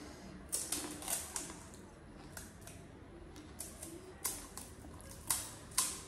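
Close eating sounds of crisp pani puri shells crunching and cracking: a dozen or so short, sharp crackles at irregular intervals, a few louder ones in the second half.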